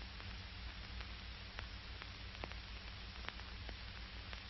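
Steady hiss and low hum of an old film soundtrack, with a few faint scattered crackles.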